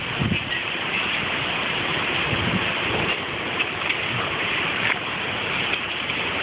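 Hurricane Sandy's storm wind rushing steadily through trees, with occasional gusts buffeting the phone microphone in low thumps.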